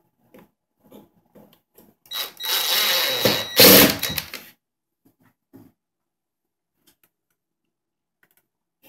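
Ridgid 18V cordless driver running for about two seconds, driving a screw through a metal bracket into the table's end panel, loudest just before it stops. Light clicks of handling the screws and bracket come before and after.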